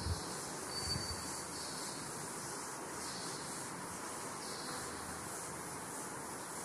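Chalkboard duster wiping across a chalkboard in slow strokes, soft rubbing swells over a steady high hiss, with a couple of light knocks near the start.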